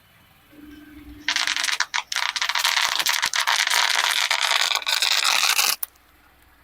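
A dense, crackling scrape starting about a second in and lasting some four and a half seconds, with a couple of brief breaks, then cutting off suddenly.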